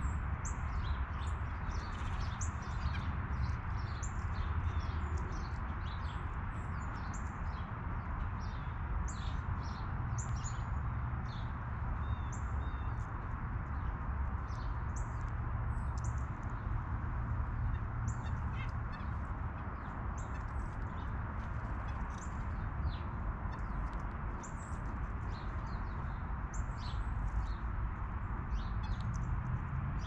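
Many small birds chirping: dozens of short, high chirps and calls scattered through, over a steady background noise.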